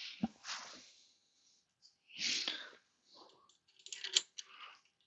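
A person breathing close to the microphone, three soft breaths about two seconds apart, with a short knock near the start and light clicks of small plastic clamp parts being handled and fitted around a metal tube.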